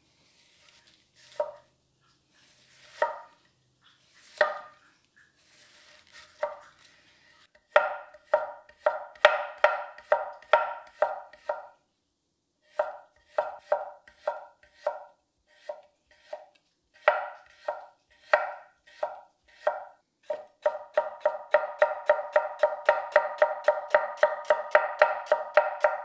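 A 250mm 26C3 carbon-steel gyuto chopping vegetables on an end-grain wooden board. It starts with a few slow, separate cuts, then moves into runs of quick, even chops at about four to five a second, with a brief pause midway. Each stroke ends in a sharp knock as the blade meets the wood.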